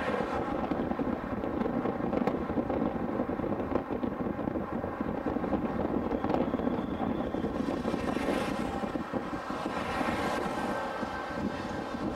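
Freight cars of a mixed freight train rolling past close by: a steady noise of steel wheels running on the rails, with faint steady tones running through it.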